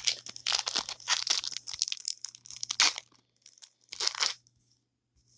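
A trading-card pack wrapper being torn open and crinkled: dense crackling bursts for about three seconds, then one more short crinkle about four seconds in.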